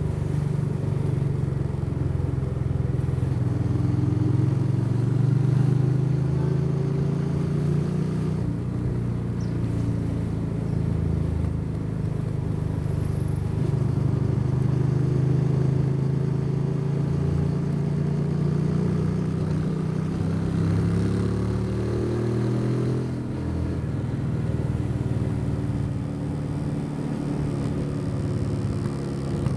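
Motorcycle engine and exhaust under way, the note rising and falling with the throttle. About two-thirds of the way in the revs climb and then drop back.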